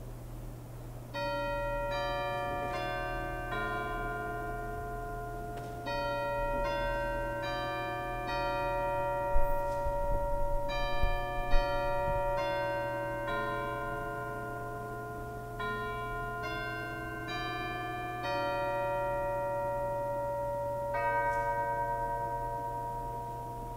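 Chimes ringing a slow tune in phrases of four notes, each note left to ring on under the next, with a final held chime near the end, sounding the start of worship. Two short sharp clicks come in the middle.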